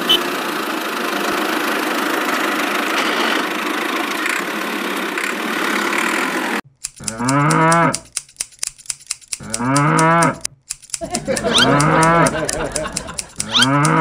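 A steady engine running noise for about six seconds, then it cuts off and cattle moo four times, each a long call of about a second that bends in pitch.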